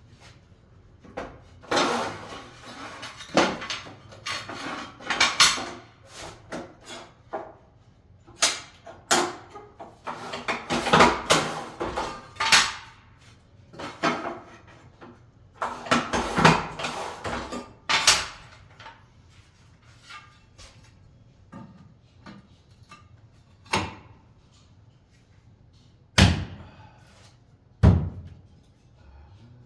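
Irregular knocks, clatter and scraping of hand work on hard materials, in busy clusters, with two heavy thumps near the end.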